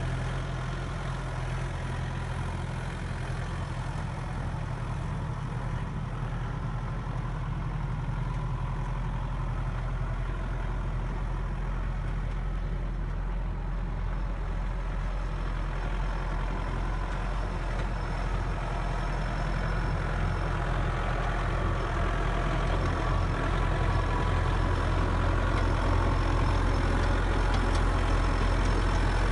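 Diesel engine of a 2013 Bobcat S650 skid steer running steadily at idle, a little louder over the last third.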